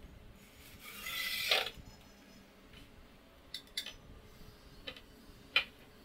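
Cordless drill driving a screw through a laminated chipboard top into a wooden leg: the motor runs about a second, getting louder, then stops abruptly. A few sharp clicks and knocks follow, the loudest near the end.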